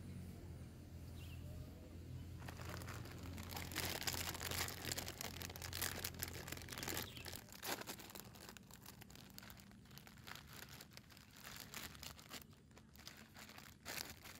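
Plastic food packet crinkling and crackling as it is handled and opened, dense rustling for several seconds, then a few sharper crackles. A low steady hum underneath stops about halfway through.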